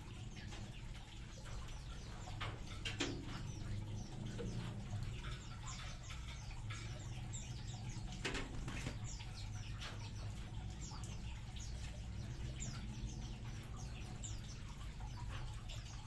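Birds in an aviary chirping: many short, high, falling calls repeating throughout, with louder flutters of wingbeats about three and eight seconds in. A steady low hum runs underneath.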